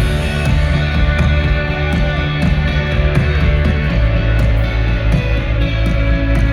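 Live rock band playing loudly: electric guitars and bass over drums and cymbals, a full, dense band sound.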